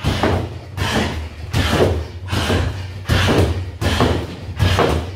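Repeated front kicks thudding into a freestanding punch bag, one about every three-quarters of a second.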